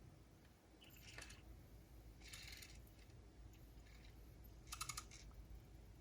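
Faint small plastic clicks and rustles from handling a MiniDisc and the portable MiniDisc recorder, in three short bursts about a second in, midway and near the end.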